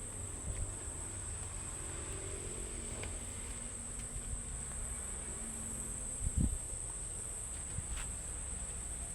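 Insects, of the kind heard in trees, keeping up a steady, continuous high-pitched buzz, with a low rumble underneath and one brief low thump about six seconds in.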